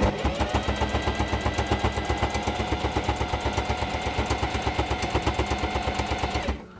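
Singer 4411 Heavy Duty sewing machine running under pedal control, stitching a straight seam through two layers of canvas with a fast, even rhythm of about eight stitches a second. It stops suddenly near the end.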